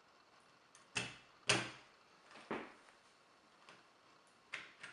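A few sharp knocks and clicks of a doorknob's handle being pushed into the door and fitted onto the latch, the loudest about a second and a half in.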